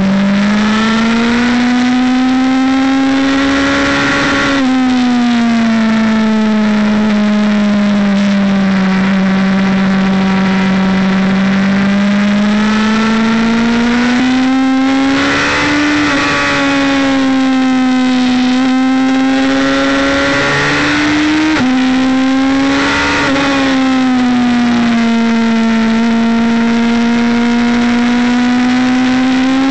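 A motorcycle engine heard from a camera mounted on the bike, revving up and easing off through corners in second gear, its pitch rising and falling several times. About two-thirds of the way through there is a sudden drop in pitch as it shifts up into third, then it climbs again.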